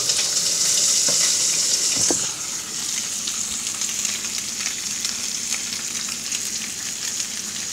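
Rockfish fillet frying in butter in a stainless steel skillet: a steady sizzle with scattered crackles and pops. It is louder for the first couple of seconds, then settles a little lower.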